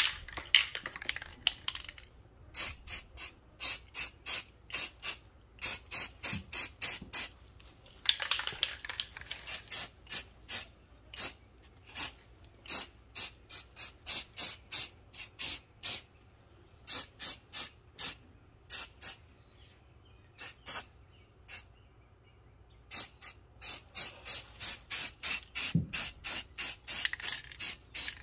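Aerosol can of high-heat paint spraying a brake caliper in many short hissing bursts. Most come as runs of quick puffs, about two a second, with a few longer sprays and short pauses between runs.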